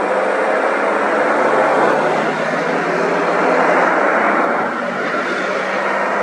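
Engines of a small box truck and a pickup running as they drive slowly past at close range: a steady low engine hum under a dense noise, dipping briefly about three-quarters of the way through.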